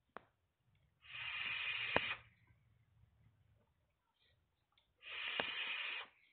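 Two drags through a Gear rebuildable tank atomizer with its airflow wide open, a 0.37 ohm coil firing at 35 watts. Each is about a second of airy hissing, with a sharp click in each.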